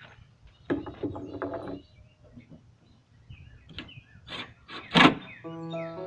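Handling and knocking sounds of a cordless drill and screw against a wooden crossmember, with a short buzzing burst about a second in and sharp knocks, the loudest about five seconds in. Birds chirp faintly, and background music starts near the end.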